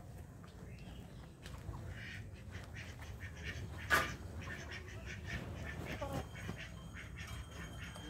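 A single short, sharp squawk from farmyard poultry about four seconds in, with a few fainter calls around it over low background noise.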